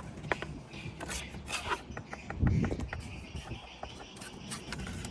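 Bricklaying work: scraping and light tapping clicks, with one dull thud about two and a half seconds in.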